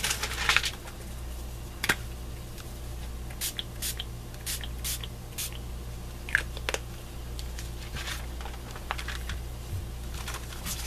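Short spritzes from a pump-action mist spray bottle of Tattered Angels colour spray, several in quick succession a few seconds in and a few more later, with light paper handling over a low steady hum.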